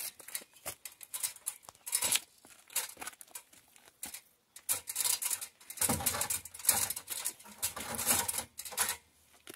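Aluminium articulated multi-position ladder being folded at its hinge and swung up into place: irregular clicks, rattles and scrapes of its metal rails and hinge joints, busier in the second half.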